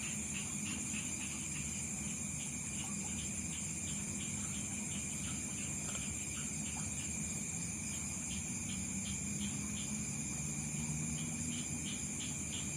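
Insects shrilling in a steady, high-pitched chorus, with a short chirp repeating two to three times a second.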